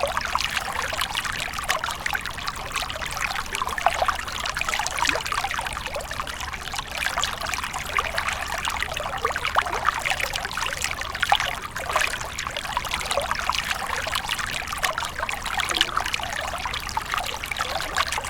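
Small stream of water trickling and babbling steadily.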